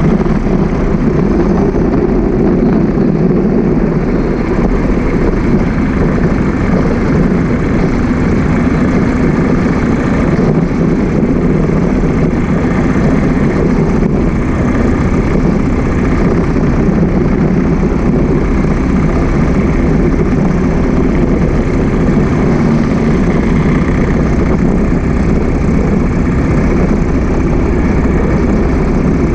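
Motorcycle cruising along a road: its engine runs steadily under a constant rush of wind and road noise. No sudden events stand out.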